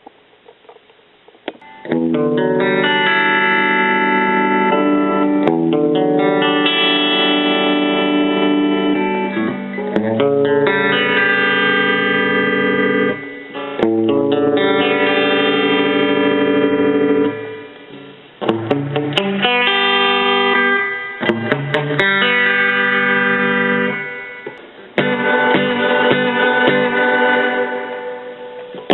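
Electric guitar played through a Roland Jazz Chorus combo amplifier, letting a series of chords ring, each held for a few seconds. It starts with a few faint plucks, and the chords come in about two seconds in.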